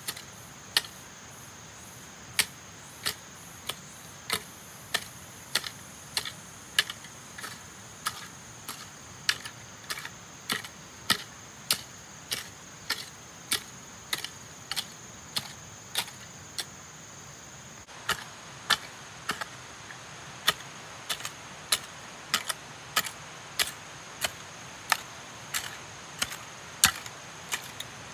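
A steady series of sharp taps or clicks, about one and a half a second, over a faint steady high-pitched tone. The taps stop briefly about two-thirds of the way through, then carry on at the same pace.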